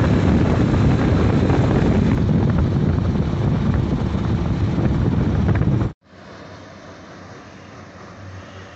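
Wind rushing over the microphone and road noise from a motorcycle riding at speed along a highway, a dense low rumble. About six seconds in it cuts off abruptly to a much quieter steady hiss.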